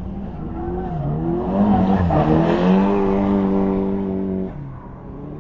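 Drift car's engine held high in the revs while the car slides sideways with its rear tyres squealing. The engine note wavers up and down, then holds steady and loud before falling away about four and a half seconds in.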